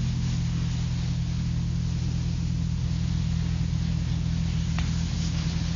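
Steady low hum with hiss, the background noise of an old tape recording during a pause in speech.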